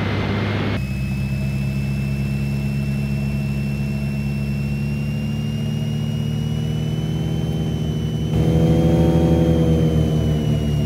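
Twin piston engines and propellers of a Britten-Norman Islander BN-2A-26 droning steadily on short final approach, with a thin high whine above them. About eight seconds in the sound grows louder and its pitch swells up and back down as the power changes.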